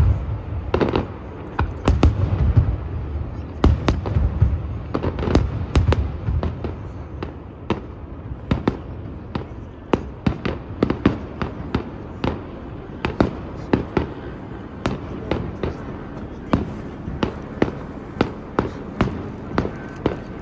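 Fireworks display: deep booms of shells bursting over the first few seconds, then a long run of sharp, separate cracks and pops, one or two each second.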